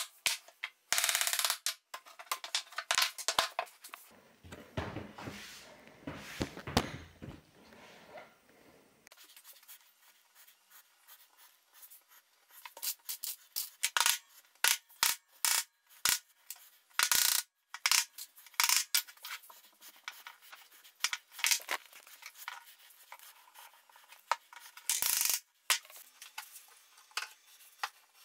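Woodworking assembly sounds: a wooden mallet tapping a joint home at the start, then wooden parts knocked and set down on a workbench in many sharp knocks and clicks. A stretch of rubbing comes a few seconds in and lasts about five seconds.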